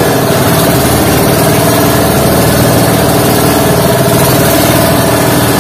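Inboard engine of a bangka (Philippine outrigger boat) running steadily and loud while the boat is under way at sea.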